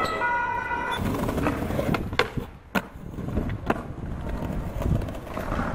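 Skateboard wheels rolling over paving with a steady rumble, broken by sharp clacks about two seconds in, again a little later and near four seconds in. A few short held tones sound in the first second.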